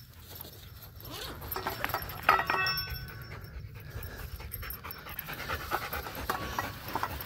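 Siberian husky panting hard with its tongue out. About two seconds in there is a brief sharp ringing clink.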